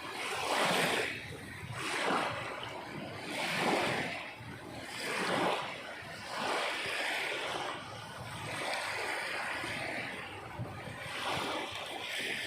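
Sea waves washing in, in repeated swelling surges about every second and a half, with a steadier wash between them about two-thirds of the way through.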